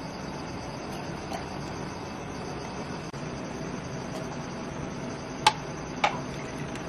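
Steady background hum, with two sharp clicks about half a second apart near the end as kaffir lime shampoo is ladled into a plastic bottle standing in a plastic basin.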